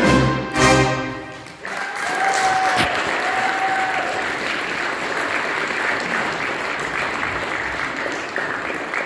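Accordion orchestra playing its closing chords, the last one struck twice and dying away within the first second and a half. The audience then breaks into steady applause.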